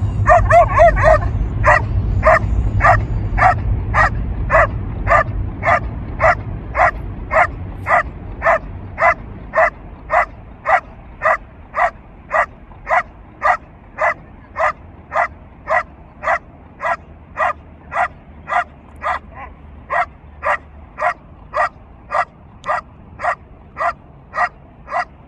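A Belgian Malinois barks steadily at a helper standing in a blind, the hold-and-bark of IPO protection work. It opens with a quick flurry of barks, then settles into even, single barks about one and a half a second.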